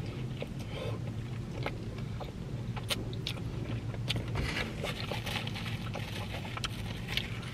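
Close-up chewing of a bite of a pulled pork cheeseburger: soft, wet mouth sounds and lip smacks in irregular clicks, over a low steady hum.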